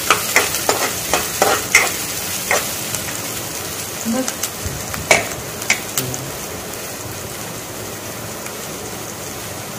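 Chopped onions sizzling in hot oil in a non-stick kadai, being fried until golden, with a metal ladle scraping and clacking against the pan as they are stirred. The stirring stops about six seconds in and the steady sizzle carries on alone.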